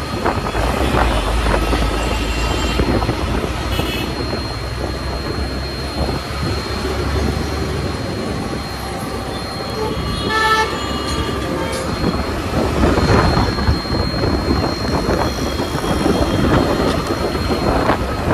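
Road and wind noise from riding a scooter in heavy highway traffic, with vehicle horns honking several times; the loudest horn comes about ten seconds in.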